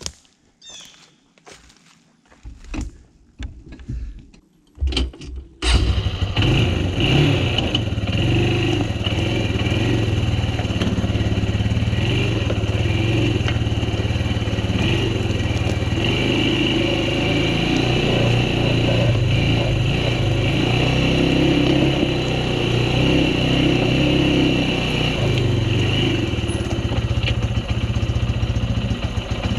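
A few scuffs and knocks, then an ATV engine comes on about six seconds in and runs steadily with a low hum for the rest of the time.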